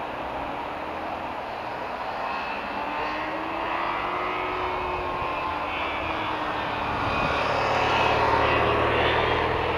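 A motorcycle engine climbing the mountain road, its pitch rising and dropping with the gear changes and throttle, growing louder as it approaches.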